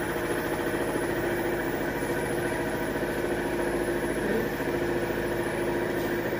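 Airway-clearance vest and its air-pulse generator running: a steady mechanical hum with a fast, even pulsing.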